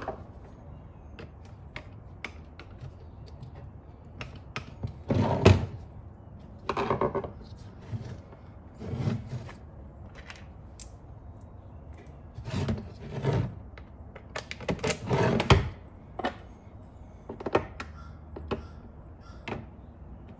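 Hand work in a garage: scattered knocks, clicks and clunks of tools and hardware being handled, with a few louder bunches of clattering.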